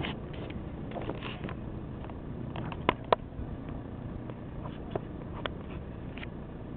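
Steady low wind rumble on the microphone, with a few short sharp clicks: two close together about three seconds in, and a couple more later.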